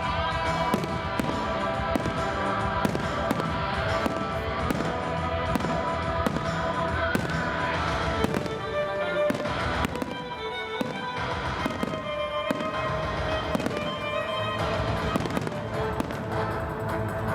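Fireworks display: a rapid, continuous series of bangs and crackles from exploding shells, with music playing underneath.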